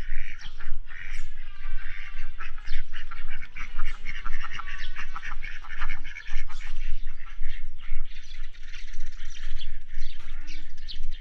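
Domestic ducks quacking repeatedly in short calls.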